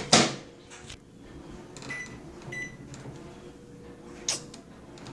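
Microwave oven being closed and set: a loud knock of the door shutting at the start, then two short electronic keypad beeps about two seconds in, and a sharp click a couple of seconds later.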